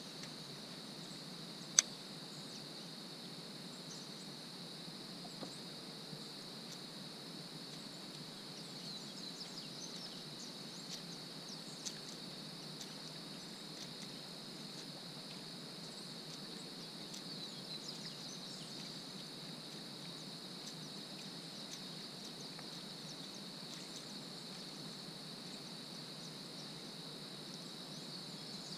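Steady chorus of insects, a continuous high-pitched buzz. A single sharp click stands out about two seconds in, with a few fainter ticks later.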